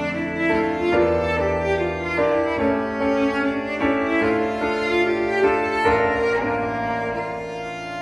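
Instrumental background music led by bowed strings, violin and cello, with some piano, playing a melody of held notes that change every half second or so.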